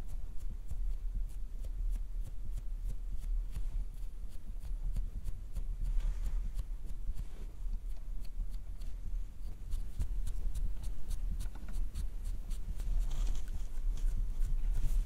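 Sponge-tip lip applicator dabbing and rubbing against the lips, heard as a run of soft, quick taps and clicks, several a second, over a low steady hum.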